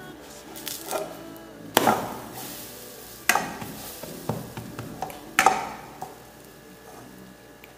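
A silicone spatula knocking and scraping against a nonstick frying pan as a pancake is flipped: three loud knocks about a second and a half apart, with smaller taps between, over faint background music.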